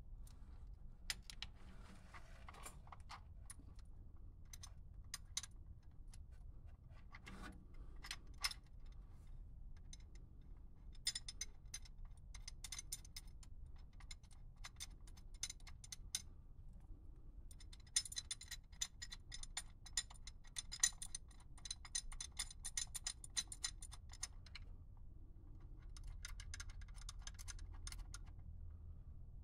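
Ratchet wrench clicking in several runs of rapid ticks as it tightens the bolts holding a timing pointer to an LS engine's front timing cover, with scattered metal clinks of the tool and bolts before the first run. The longest run of clicks comes about two-thirds of the way in.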